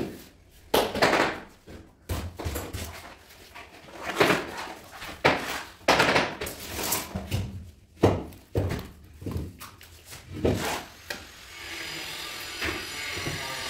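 Irregular knocks, thuds and short scrapes of floor-tiling work: large 60×60 floor tiles and a trowel being handled on a bed of tile adhesive. Near the end the knocking gives way to a steady background noise.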